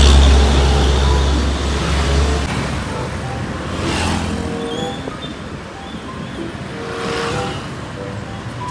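Road traffic noise: motor vehicles passing, with a deep engine rumble for the first two seconds or so and two more vehicles going by, about halfway through and near the end.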